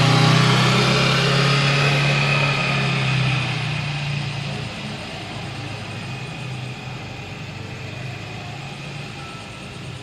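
A motor vehicle's engine runs close by with a steady low hum, then fades out about halfway through, leaving a fainter background rumble.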